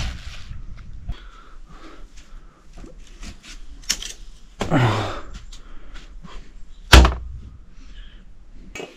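Handling noises and light knocks, then one heavy thud about seven seconds in as a slab of pork is set down on a plastic cutting board on a wooden table.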